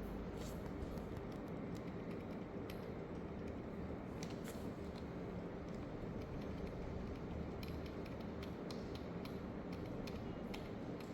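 Steady low background hum with scattered faint clicks and ticks.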